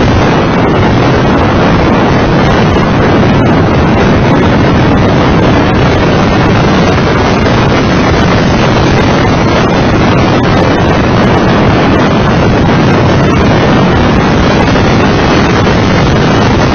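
Steady wind buffeting on a camera mounted outside on the nose of a Mitsubishi FTO GPX at track speed, with the car's engine and tyre noise running under it.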